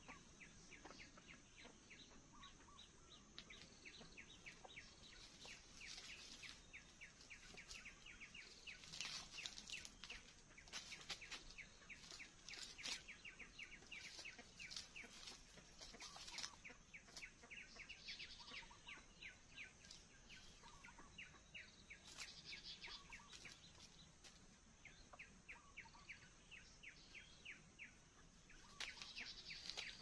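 Faint birdsong: small birds chirping in quick runs of repeated high notes, with a few soft, lower clucks from a chicken.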